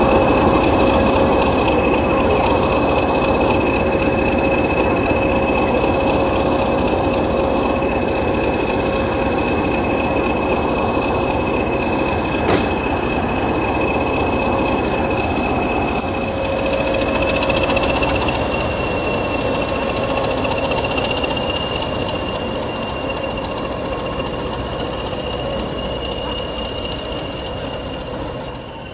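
Class 20 diesel-electric locomotive's English Electric engine idling: a steady rumble with a steady mid-pitched hum and a high turbocharger whistle, which rises slightly in pitch about two-thirds of the way through. A single sharp click comes about halfway.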